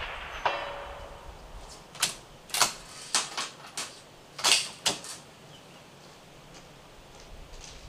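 The echo of a suppressed rifle shot fades out, with a short ringing ping about half a second in. Then comes a run of about nine sharp metallic clicks over some three seconds, typical of a Steyr SSG08-A1 bolt-action rifle's bolt being worked to eject and rechamber.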